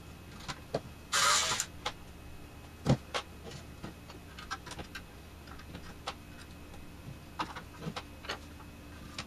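Tools and small metal parts handled on a workbench during disassembly of an old RF signal generator chassis: scattered clicks, clinks and knocks, with a sharper knock near three seconds in and a short rasping burst about a second in.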